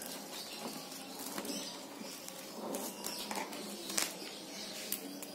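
Packing tape and plastic wrapping being handled: soft crinkling with scattered light clicks, a sharper one about four seconds in.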